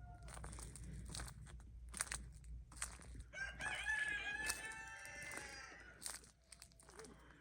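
A rooster crows once, a long call starting about three seconds in. Footsteps crunch on ice-glazed ground about once a second.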